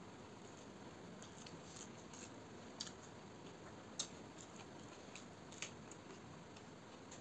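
A person eating rice and chicken curry by hand: scattered sharp, wet clicks from chewing and from fingers mixing the rice, the loudest about four seconds in, over a steady faint hiss.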